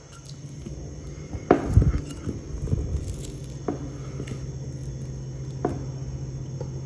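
A drinking glass wrapped in cling film is rolled and pressed over a slice of sandwich bread on a wooden chopping board, flattening it. A few light knocks and rustles, over a steady low hum.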